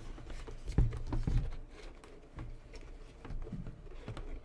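Handling noise from a motorcycle helmet and its intercom headset parts being fitted: soft thumps about a second in and scattered light clicks and rustling.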